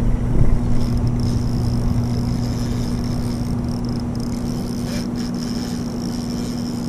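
A boat motor running with a steady low hum under a haze of water and wind noise, with a brief bump about half a second in.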